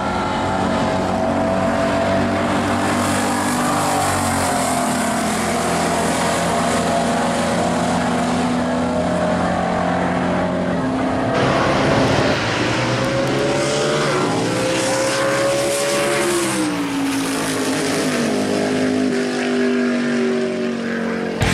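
1955 Chevy Bel Air drag car's engine at full throttle on a drag-strip pass. The pitch climbs and drops back at each gear change, then sinks as the car runs away down the track.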